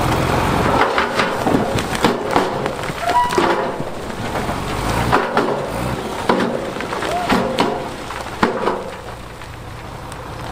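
Big stones clattering and knocking as they tumble and settle, an irregular run of sharp impacts, with a truck engine running underneath at the start and coming back near the end.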